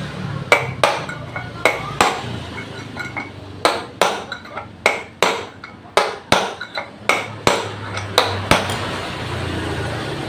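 A hammer strikes metal in about sixteen sharp blows in uneven groups, each ringing briefly, stopping near the end. It is tapping work on a scooter's CVT pulley while its bearing is changed.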